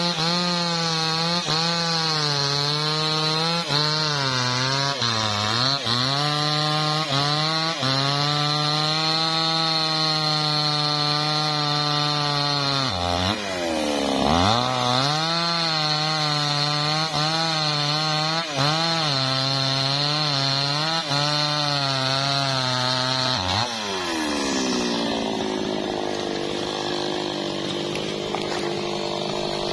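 Maestro MT 6500 two-stroke chainsaw cutting through a teak log at full throttle, its pitch sagging as the chain bites and nearly bogging down about 13 seconds in before it revs back up. About 24 seconds in it drops back to a steady idle.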